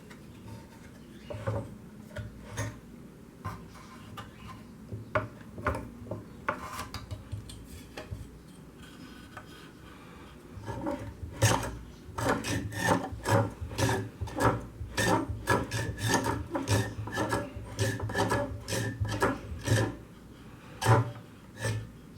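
Hand filing or rasping strokes on a workpiece, scattered and light at first, then a steady fast back-and-forth of about two to three strokes a second starting about halfway through.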